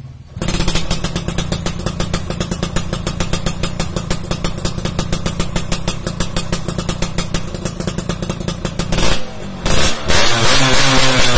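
A 500 cc motorcycle engine idling with an even, rapid beat, then revved about ten seconds in, louder, its pitch rising and falling.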